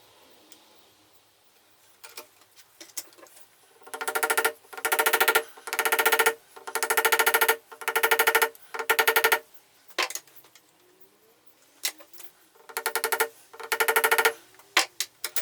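Small electric drill running in about eight short bursts of under a second each, a steady pitched motor whine switched on and off, with a few sharp clicks around them; the bit is drilling a hole that comes out out of square.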